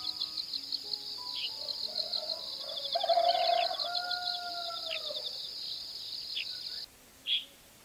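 Rural garden ambience: insects trilling in a steady, fast-pulsing high buzz, with short bird chirps every second or so and a louder, lower drawn-out call about three seconds in. The insect trill cuts off abruptly near the end, leaving one last chirp.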